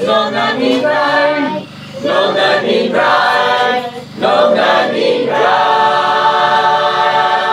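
A small choir of adults and children singing unaccompanied. They sing short phrases with brief breaks, then hold one long chord from about five and a half seconds in.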